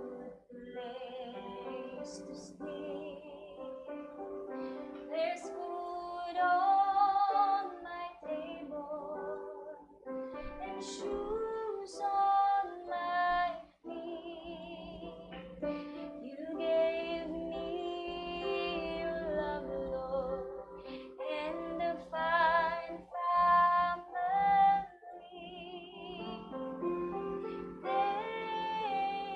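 A woman singing a slow song with vibrato, accompanying herself with held chords on an Alesis Coda digital piano.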